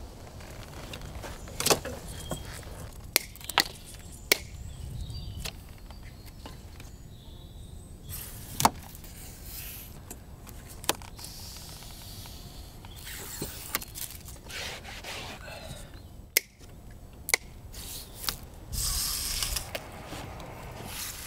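Hand work fitting plaster stop beads and measuring against a window frame: scattered sharp clicks and knocks, the loudest a little under halfway through, with two short scraping rustles, one past the middle and a longer one near the end.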